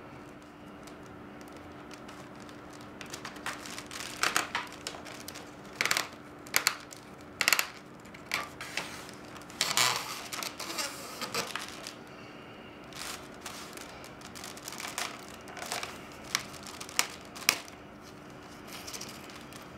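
Reed lashing rustling and crackling as it is threaded through the woven reed basket and pulled snug: an irregular scatter of sharp crinkles and clicks. A faint steady hum runs underneath.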